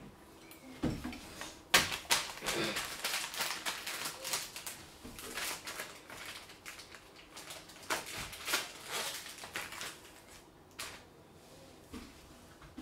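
Candy packaging handled at a table: a dense run of rapid crinkling and rattling clicks from about two seconds in until near ten seconds, loudest at the start and again about eight seconds in.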